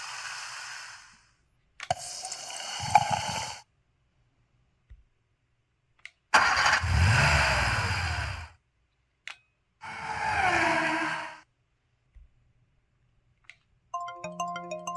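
A string of short synthetic sound effects from a PT-S120 mobile phone's built-in sound-effect collection, each separated by silence: noisy bursts, the loudest one about six seconds in with a deep rumble, another about ten seconds in with falling glides. Near the end a short melodic ringtone-like chime begins.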